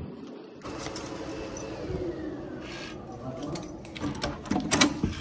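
Handling noise and steps along a carpeted hallway. Near the end come a few sharp clicks and knocks as a keycard door lock is unlocked and its lever handle is pressed to open the room door.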